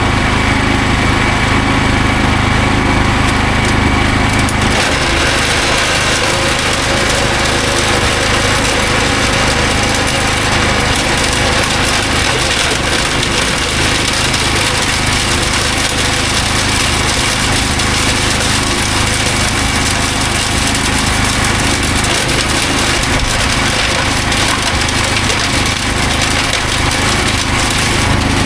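Hyundai HYCH1400 wood chipper's 14 hp, 420cc petrol engine running steadily at speed. About five seconds in the sound turns denser and rougher as wood goes through and is chipped.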